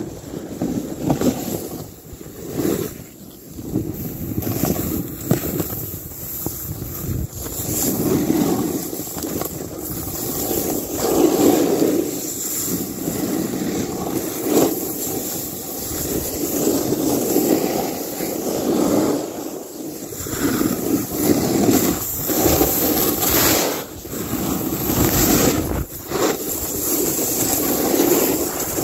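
Snowboard sliding and carving through snow, a rushing scrape that swells and eases every couple of seconds, with wind buffeting the phone's microphone.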